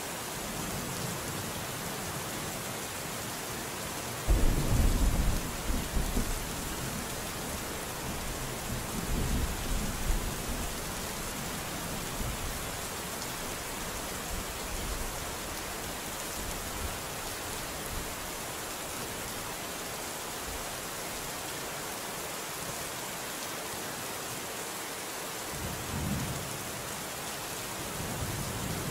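Steady heavy rain hissing, with thunder breaking in suddenly about four seconds in and rolling for a couple of seconds, a second rumble of thunder around ten seconds, and a fainter rumble near the end.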